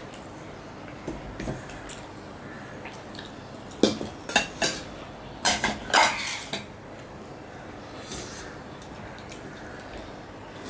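Stainless steel bowls, a spoon and a steel plate clinking and clanking against each other as curry is served out and the bowls are stacked. The sharp metal clinks come in a cluster of about a dozen, starting about four seconds in and lasting a couple of seconds, some with a brief ring.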